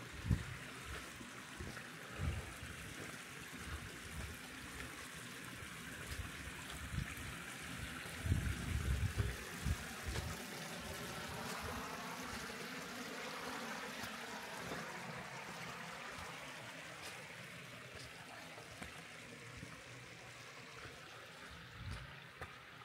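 Stream water running steadily over rocks, with a few low thumps near the start and around eight to nine seconds in.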